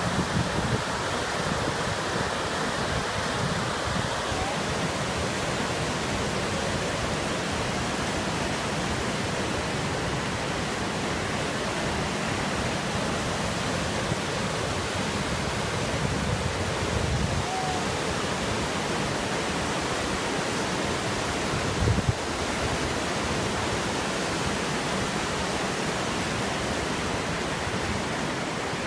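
Narmada River gushing over rocks in white-water rapids: a steady, even rush of water, with one brief low bump about two-thirds of the way through.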